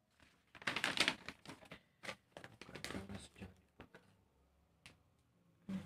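Paper and plastic film rustling and crinkling as a folded instruction sheet and a plastic-wrapped laminator are handled: a quick run of crackles that thins out after about three seconds.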